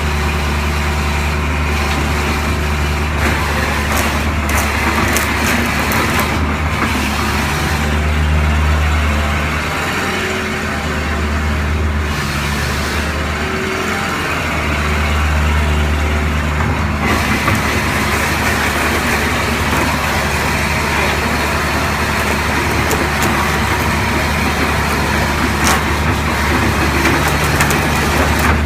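Kubota KH400-7 excavator's diesel engine running at a steady speed, its note dipping briefly twice near the middle, with a hiss over it that comes and goes.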